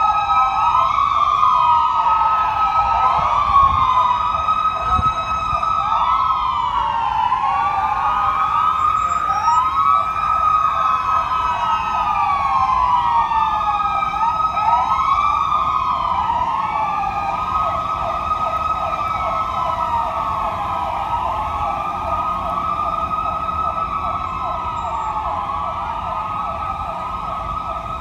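Several police car sirens wailing at once, each rising and falling over a couple of seconds, overlapping out of step with one another. They fade slightly toward the end.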